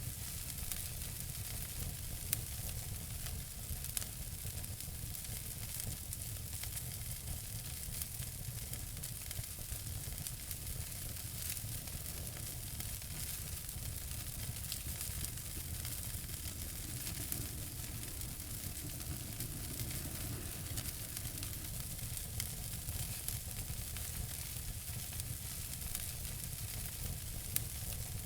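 Wood fire burning in a fireplace: a steady hiss with frequent small crackles and a few sharper pops, over a low rumble.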